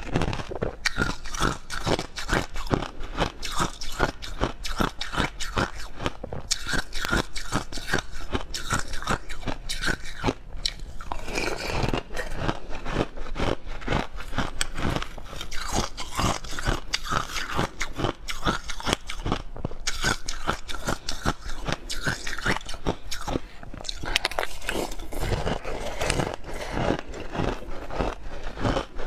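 Crushed ice being chewed close to the microphone: a fast, steady run of crisp crunches.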